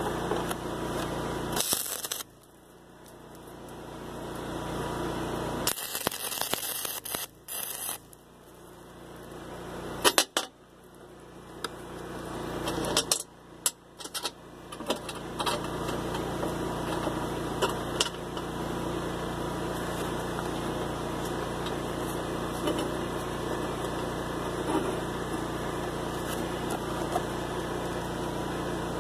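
Small steel pieces clinking as they are handled and set down on a steel welding table, with a few sharp metallic clicks in the first half, over a steady mechanical hum.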